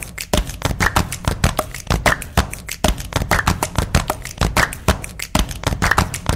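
Fast, dense percussive hip-hop beat, with sharp strokes several times a second over a low bass.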